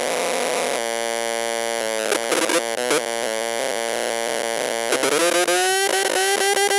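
Budweiser mini wired speaker with its audio plug not seated properly, its amplifier oscillating on its own and putting out harsh electronic buzzing tones that jump and glide in pitch like chiptunes. The uploader takes this for an overactive amplifier. A steady buzzing chord holds from about a second in, and rising, warbling glides come in near the end.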